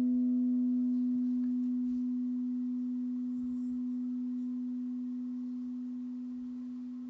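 Crystal singing bowl ringing out after a strike: one steady low tone slowly dying away, its fainter higher overtones fading within the first couple of seconds.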